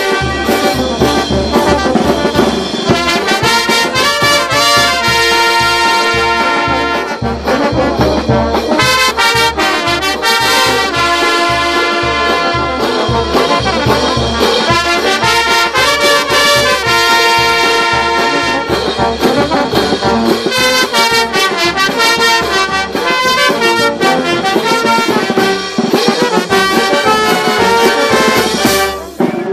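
Andean brass band playing a lively tune: trumpets, saxophones and trombones carry the melody over sousaphones, with bass drum and cymbals keeping a steady beat. The music drops out briefly just before the end.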